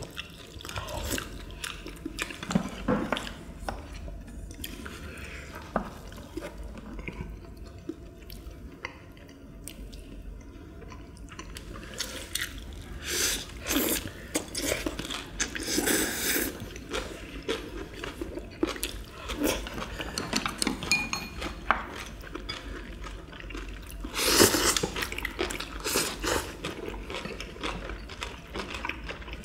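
Eating at a shared table: chopsticks and serving tongs clicking and scraping against ceramic bowls and plates, with chewing and wet mouth sounds. There are louder bursts about two-thirds of the way in and near the end.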